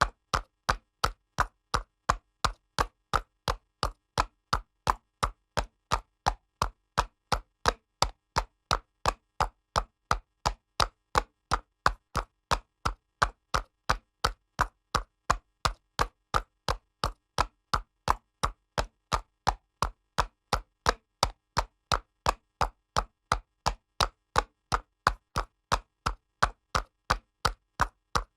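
Horse's hooves trotting on pavement: a steady, even clip-clop of sharp hoof strikes, about three a second, with no pause or change in pace.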